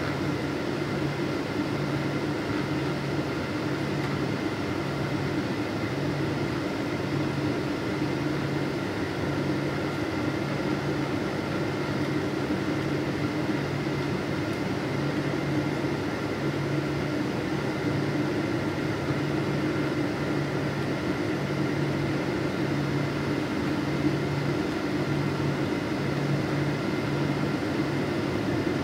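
Jet airliner cabin noise on final approach: a steady engine and airflow hum heard from inside the cabin, with a low drone that pulses about once a second and faint steady whining tones above it.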